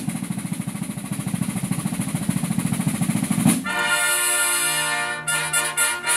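Snare drums play a roll that builds steadily in loudness for about three and a half seconds, then the herald trumpets come in together on a loud held brass chord. This is the opening of a modern military fanfare, and a few short, broken notes follow before the chord is held again near the end.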